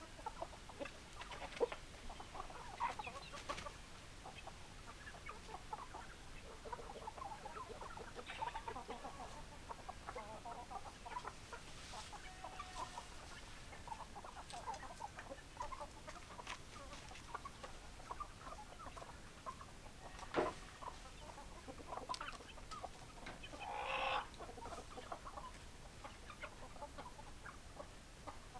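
A flock of chickens clucking: many short, overlapping clucks throughout. A sharp knock comes about 20 seconds in, and a single louder drawn-out call about 24 seconds in.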